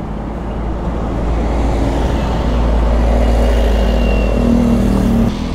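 Motor scooter running under way, engine and road noise growing louder with a slightly rising engine note over the first few seconds, then cutting off abruptly near the end.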